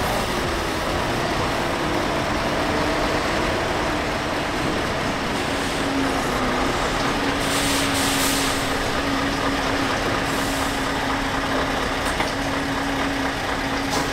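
Scania S520 truck's V8 diesel running at low revs as the truck reverses slowly into a loading bay, with a couple of brief hisses of air, at about eight and ten seconds in.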